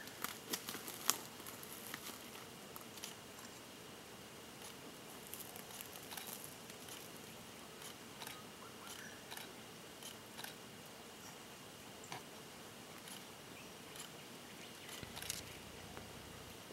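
Faint, scattered crunches and clicks of a wallaby foraging in dry leaf litter and twigs, with a quick cluster about a second in and another near the end.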